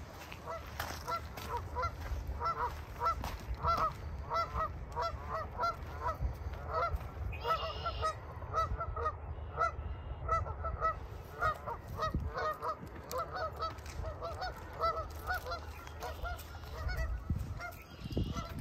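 A flock of geese honking, many short overlapping calls repeating throughout, over a low rumble.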